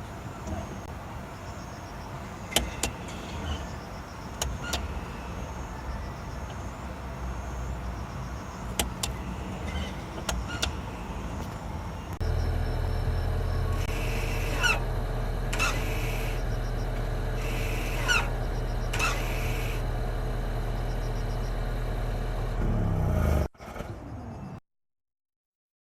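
Electronic parking brake of a Honda Vezel Hybrid, its motors whirring in four short bursts as it is applied and released, with a short squeak ('gyu') as it tightens and as it begins to release. This squeak is a known fault on this model, for which a countermeasure part exists. A few clicks come before, and a steadier hum starts about halfway through.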